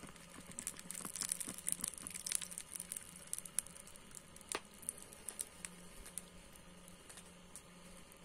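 Red-hot 5160 spring-steel knife blade being quenched in a tray of oil: the oil sizzles and crackles with many sharp pops, thickest in the first few seconds and dying away after about five seconds as the steel is hardened.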